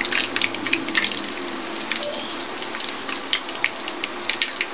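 Battered chicken feet deep-frying in hot oil in a wok: a steady sizzle with many sharp crackling pops.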